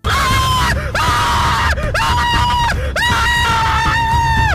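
A man screaming at full volume in four long, high-pitched, held screams with short breaks between them, the last one longest, starting abruptly, over heavy bass underneath.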